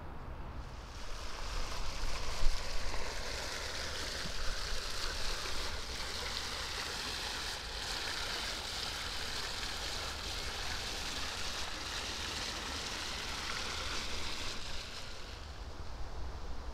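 Steady rush of splashing water, coming up about a second in and fading away near the end.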